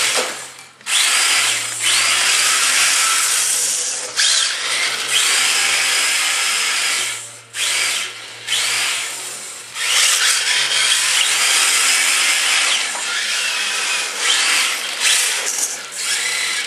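Electric motors of two RC touring cars whining, rising and falling in pitch as the throttle is worked, over a steady hiss of tyres sliding on the floor while drifting. The sound drops out briefly a few times when the throttle is let off.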